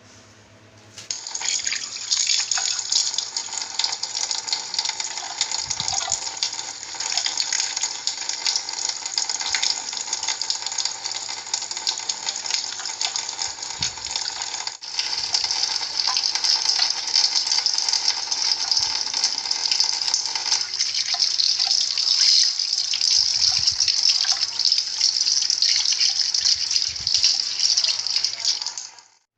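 Water running steadily from a tap into a sink, with an abrupt change in its sound about halfway through, then stopping suddenly near the end.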